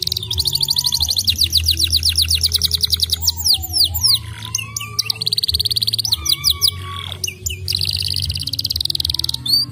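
Domestic canary singing: long runs of rapid, evenly repeated high trill notes, with sweeping notes between them and a brief pause about four seconds in and again about seven seconds in.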